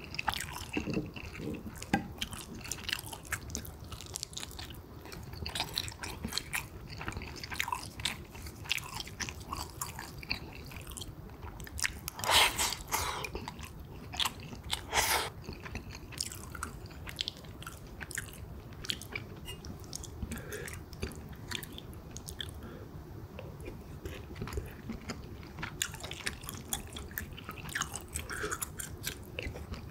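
Close-up chewing and eating sounds of a person eating pork kimchi stew with rice: wet mouth clicks and small crunches throughout, with two louder bursts about twelve and fifteen seconds in.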